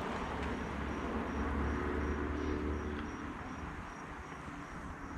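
An insect chirping in a steady rhythm, a high pulse about three times a second, over a steady low rumble.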